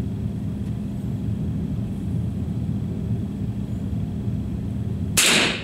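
A steady low hum, then about five seconds in a single sharp, loud rifle shot that rings out briefly.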